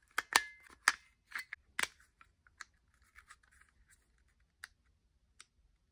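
Hard plastic clicks and taps from handling the reassembled ColdHeat cordless soldering iron's clamshell housing: several sharp clicks in the first two seconds, then a few faint ones.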